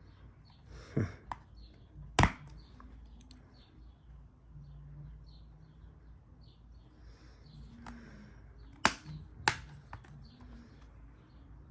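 Plastic Blu-ray cases being handled, with a few sharp clicks and taps: one about two seconds in and two close together near the end.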